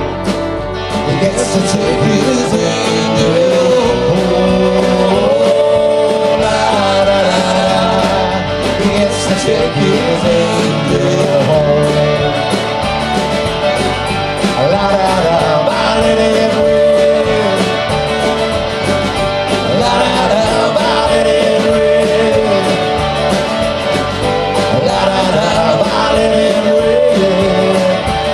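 Live country-folk band playing an instrumental passage: a fiddle melody over strummed acoustic guitar, electric bass and drums.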